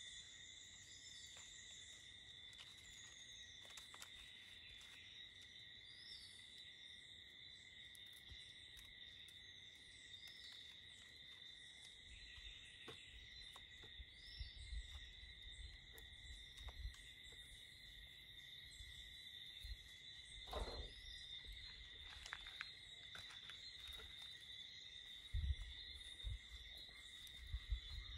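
Steady insect drone, a continuous high chirring, with a few short bird calls above it. Faint rustles and snaps of dry coconut spathe fibre being torn and worked by hand, and a few soft low thumps in the second half.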